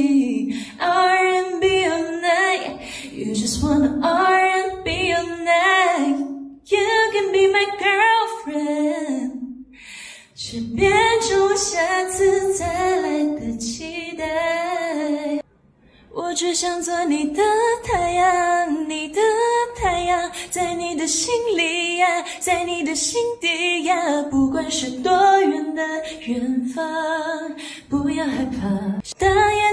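A woman singing a cappella, close into a handheld microphone, with no accompaniment. The singing breaks off briefly about ten seconds in and again around the middle.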